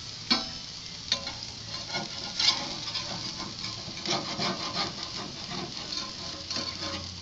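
Metal spatula scraping and clicking against the steel grill grate as burger patties stuck to the grate are pried loose, with sizzling underneath. The sharpest scrapes come about a third of a second in and again about two and a half seconds in.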